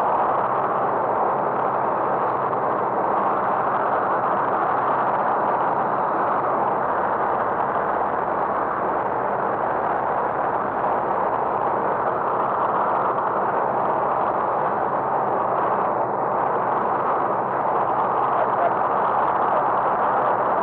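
Steady drone of a light aircraft's piston engine and propeller in flight, heard from inside the cabin. It holds an even level throughout.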